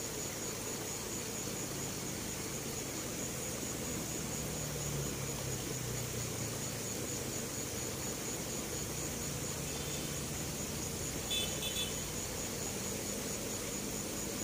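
Steady outdoor background noise at a riverbank: a continuous high pulsing hiss over a faint low hum, with a brief run of short high chirps about eleven seconds in.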